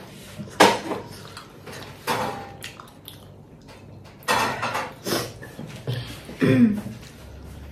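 Dishes and cutlery clinking and scraping in about five separate short bursts during a meal, with a brief voice sound near the end.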